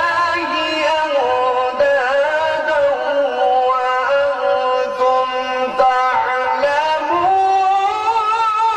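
A man's voice chanting Quran recitation (tilawat) in long, ornamented melodic phrases through a microphone.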